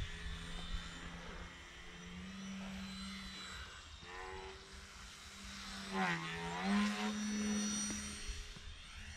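Motor and propeller of a 32-inch Edge 540 electric RC 3D plane droning in flight, its pitch shifting with throttle. About six seconds in it passes close, loudest then, the pitch dipping and coming back up higher.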